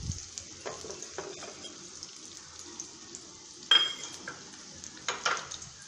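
Sliced shallots and green chilli frying in hot oil, a steady sizzle. Two sharp clinks stand out, about two-thirds through and again near the end.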